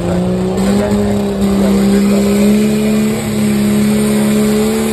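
Open-class diesel pulling truck's engine at full throttle under heavy load, dragging the weight sled down the dirt track. A steady drone that climbs a little in pitch about a second in, then holds.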